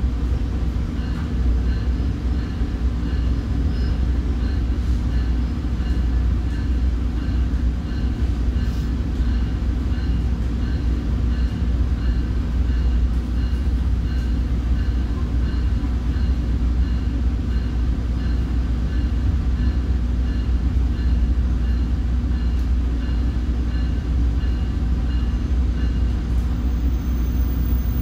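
Commuter train passenger coach running between stations: a steady low rumble with a faint high ticking about twice a second.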